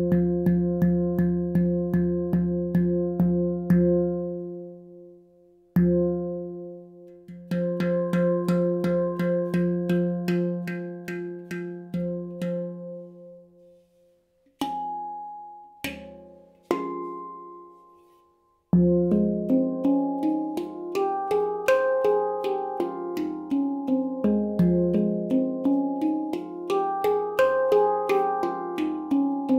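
Baopan handpan tuned to the F Equinox scale, played by hand: fast repeated strikes on the low central note, ringing with overtones, broken by short pauses and a few single higher notes. About two-thirds of the way in, quick runs climb and fall across the higher tone fields over the ringing low note.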